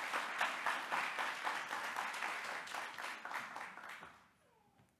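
Audience applauding with many hands clapping together, fading out about four seconds in.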